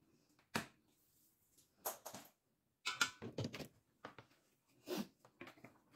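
Faint handling knocks and clicks, about half a dozen at uneven intervals, as a stick blender is picked up and handled beside a steel pot; the blender motor is not running.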